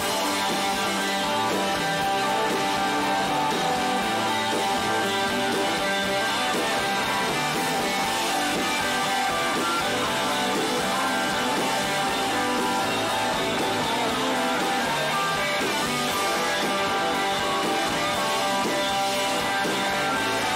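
Live band music with electric guitar to the fore, playing steadily throughout.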